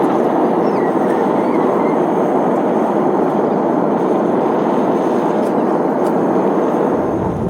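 A metal-melting furnace's burner running at full fire, a loud steady rushing noise with no rhythm.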